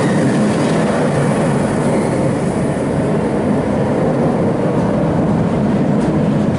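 Steel roller coaster train with riders rumbling along its track, a steady low rumble.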